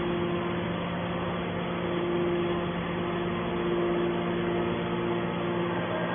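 Hydraulic baler's power unit, electric motor and pump, running with a steady hum.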